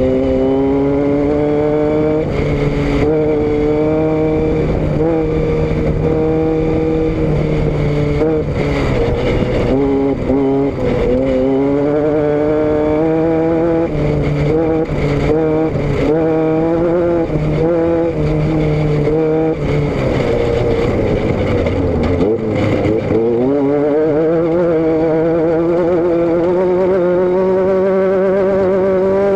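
Motor vehicle engine and exhaust running continuously under way, its pitch changing with engine speed. The pitch falls sharply about three quarters of the way through, then climbs steadily as the engine speeds up again.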